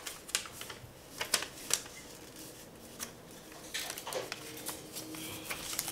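A sheet of paper being folded and creased by hand into a paper airplane: soft rustling with a few sharp crinkles and snaps.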